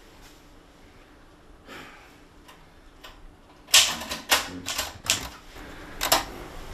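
Manual typewriter being typed on: a few faint clicks, then about halfway through a quick run of sharp key strikes.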